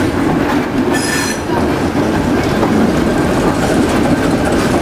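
Two ALCO S2 diesel switcher locomotives passing close by, their six-cylinder turbocharged ALCO 539 engines running loud and steady. A brief high squeal from the wheels comes about a second in.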